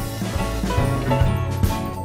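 Background music with drums, bass and a steady beat of about two hits a second.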